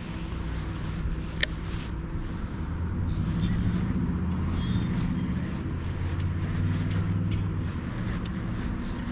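Boat motor running with a steady low hum that grows louder about two and a half seconds in and eases toward the end. A single sharp click sounds about a second and a half in.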